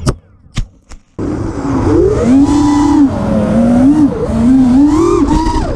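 A quadcopter hits the ground with a sharp crack, followed by two small knocks in near quiet. From about a second in, its brushless motors whine loudly, their pitch surging up and down erratically as the 4-in-1 ESC plug comes loose and the quad freaks out.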